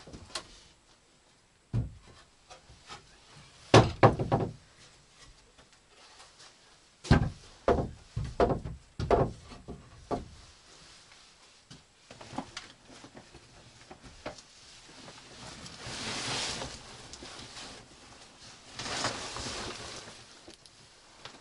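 Wooden knocks and thuds in a small plank-lined room as a hinged wall table and wooden stools are handled: one loud knock about four seconds in and a quick string of knocks between about seven and ten seconds. Near the end, cloth rustling of a jacket and backpack.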